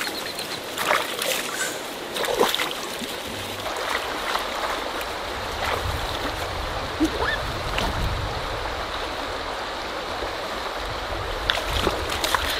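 Shallow river water running over rocks, a steady rushing, with a few splashes in the first couple of seconds as someone wades through it.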